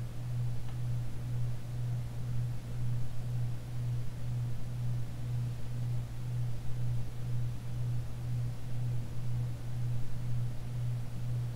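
Casablanca Hermosa ceiling fan running on its direct-drive motor: a steady low hum that pulses evenly about two to three times a second, over a soft rush of air.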